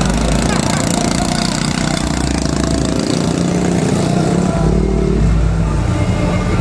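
Several small motorcycle and scooter engines running and revving together as a group of riders moves off.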